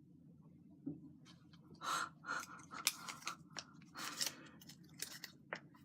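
Small slip of paper rustling and crinkling as it is handled and unfolded: a run of irregular crisp crackles starting about a second in, over a low steady room hum.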